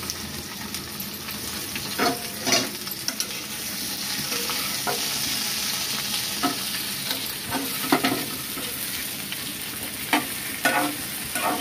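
Chopped okra sizzling in hot oil in a metal kadai while a steel spoon stirs it, with irregular clinks and scrapes of the spoon against the pan over a steady frying hiss.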